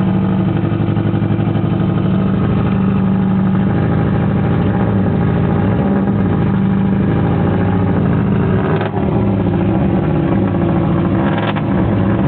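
Subaru Impreza WRC rally car's turbocharged flat-four engine running loud while warming up. It holds steady for about four seconds, then rises and falls a little in pitch as the throttle is worked, with two brief dips near the end.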